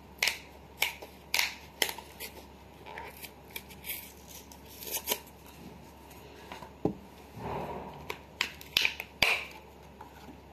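Plastic blister pack of a MyGlamm lip balm being peeled and torn open from its card backing by hand: a string of sharp clicks and snaps of the plastic and card, with a short tearing rustle about midway.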